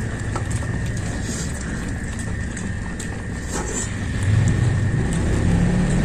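People eating by hand, with scattered short chewing and lip-smacking clicks over a steady low hum that swells about four seconds in.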